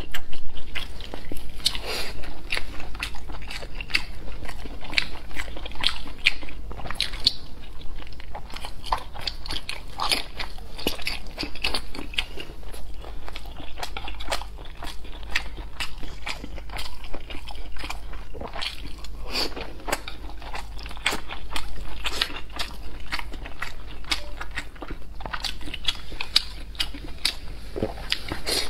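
Close-miked eating sounds: a person biting and chewing soft, slippery strips of food, with many quick wet mouth clicks and smacks.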